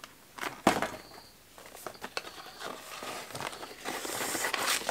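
Cardboard gift box and its paper insert being handled and opened: paper rustling and crinkling, with a sharp cardboard tap a little over half a second in and a longer stretch of rustling in the second half.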